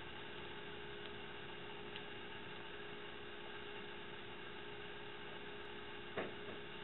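Steady electrical hum over a faint hiss: room tone picked up by the recording. A single brief soft click comes about six seconds in.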